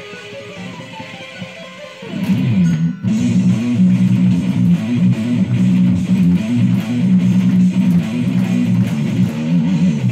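Electric guitar played solo: a quick run of higher tapped notes, then about two seconds in a much louder, fast riff of low notes that runs on with one short break and stops abruptly at the end.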